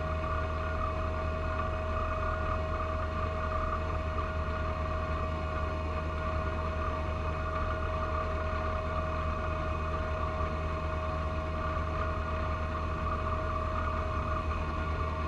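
John Deere 1025R compact tractor's three-cylinder diesel running steadily under load, driving a front-mounted 54-inch snow blower through wet snow, with a steady whine over the low engine drone.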